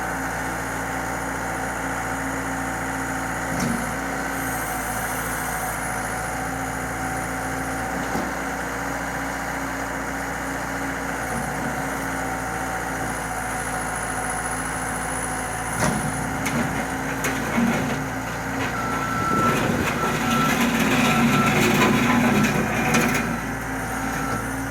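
Bobcat 853H skid-steer loader's diesel engine running steadily. It grows louder for a few seconds near the end, with a repeated beeping over it.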